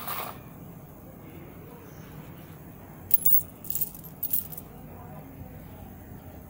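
Loose metal coins clinking against each other and a terrazzo floor as a hand pushes them into a pile. The clinks come in three quick clusters about halfway through, with a brief one at the very start.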